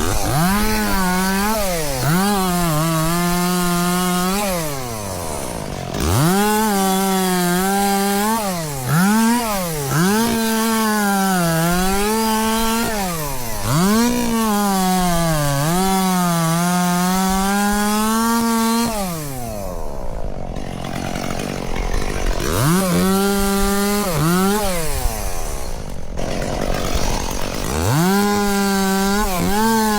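Chainsaw engine running at high revs and cutting wood. Its pitch sags and recovers as the chain bites, and several times it falls away toward idle between cuts before revving up again.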